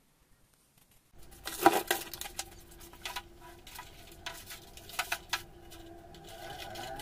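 Near silence at first, then boxes and bottles of toiletries being handled and set down on a metal shelf: a cluster of knocks and packaging rustles about a second and a half in, then scattered clicks and taps, over a steady low hum.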